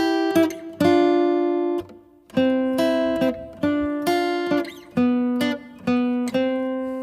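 Music: an acoustic guitar strumming chords, each chord left to ring briefly before the next, with a short break about two seconds in.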